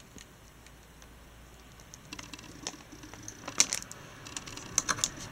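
Metal retention lever and load plate of an LGA 1155 CPU socket being forced down against heavy resistance, grinding a little with small metallic clicks and scrapes from about two seconds in. The load plate is pressing hard on the processor, which the owner suspects may be why the board fails to POST.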